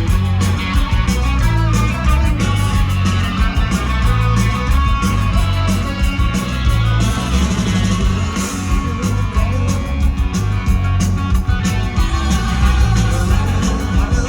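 A rock band playing live, with drums, bass and electric guitars.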